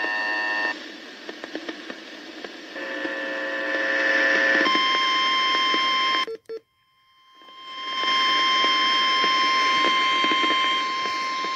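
Weather radio sounding its warning alert over radio hiss: a couple of shorter electronic tones, then from about five seconds in a single steady high alert tone. The tone cuts out for a moment about six seconds in, fades back in and holds on. This alert is the signal that a new warning broadcast is about to start.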